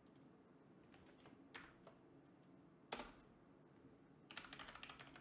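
Faint computer keyboard keystrokes: a few single clicks, the loudest about three seconds in, then a quick run of typing near the end as a sudo password is entered.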